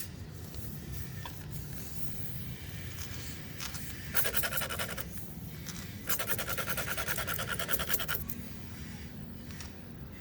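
Rasp tool of a tire plug repair kit scraping in a tire puncture: two bursts of rapid rasping, a short one about four seconds in and a longer one of about two seconds soon after.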